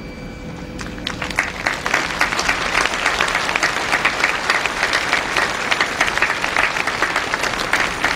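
A huge open-air crowd applauding. The clapping swells about a second in and then holds steady.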